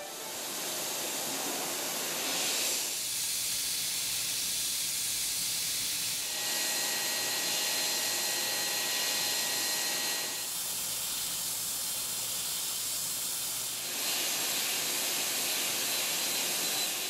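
Air-turbine spindle (BIG DAISHOWA Air Power Spindle RBX 12) running at about 120,000 rpm while micro-milling hardened D2 steel with a tiny ball endmill: a steady hiss of compressed air, fuller at times, with a faint high steady whine through the middle.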